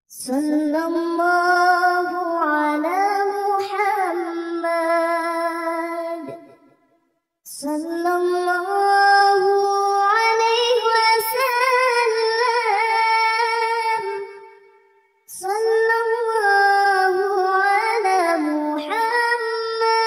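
A high, child-like voice singing a shalawat melody without accompaniment, in three long phrases with held, ornamented notes and brief silent pauses between them.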